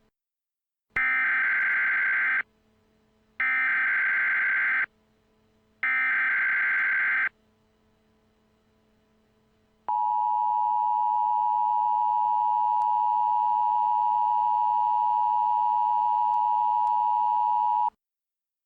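Emergency Alert System data header: three identical bursts of digital screeching, about a second and a half each. Then the steady EAS attention tone, which holds for about eight seconds and cuts off suddenly.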